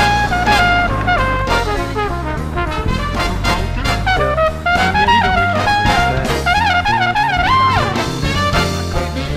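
Background music: an upbeat jazz tune with a brass melody moving in short steps over a steady bass line.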